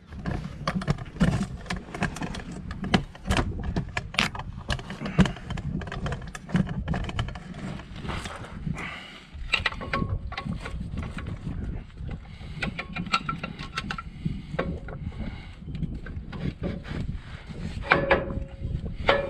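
Irregular metallic clinks, taps and rattles of brake parts being handled and fitted, with a few short ringing notes of struck metal: new front brake pads going onto the caliper.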